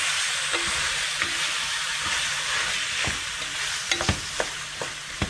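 Meat and vegetable sauce sizzling in a pan as it is stirred, with a few sharp knocks of the stirring utensil against the pan in the second half.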